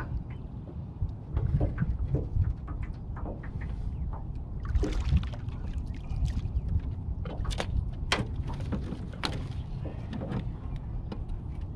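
Water splashing and dripping as a large catfish is lifted by hand out of the river about five seconds in, then sharp knocks against the small jon boat as the fish is brought aboard, over a steady low rumble.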